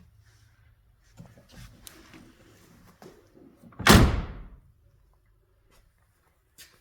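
A car door shut with one loud slam about four seconds in, after a few seconds of soft handling and rustling noises.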